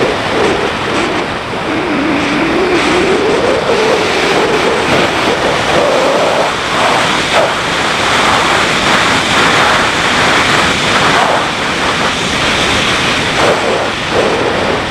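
Heavy wind rush over the microphone of a moving motorcycle. Underneath it, the BMW G650GS's single-cylinder engine runs, its pitch rising and falling as the revs change.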